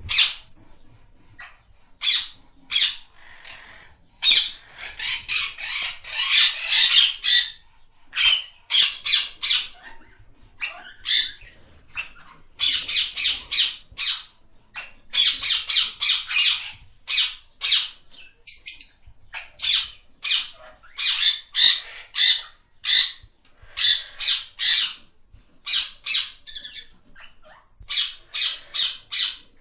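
Parrot squawking: short, harsh screeching calls, some single and many in quick runs of several, repeated throughout.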